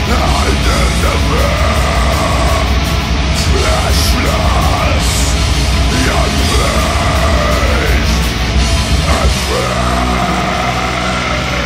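Black metal band rehearsal recording: distorted guitars, bass and drums playing loud and dense. A melodic line rises and falls over them about every two seconds.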